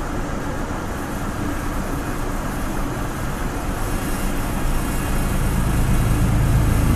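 Steady rushing rumble of a double-stack container freight train passing close alongside a moving passenger train, its wheels and cars going by. A low drone builds and the noise grows louder near the end as the freight's locomotives draw near.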